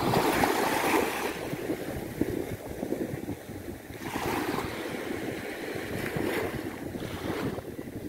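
Sea waves breaking on a beach, the surf surging at the start, about four seconds in and again near the end, with wind buffeting the microphone.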